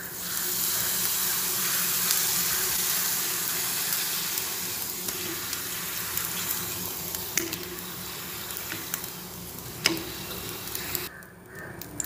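Homemade pappadam (urad-dal wafer) frying in hot oil: a loud hissing sizzle that starts as it goes in and slowly dies down, with a couple of sharp clicks. The sizzle cuts off shortly before the end.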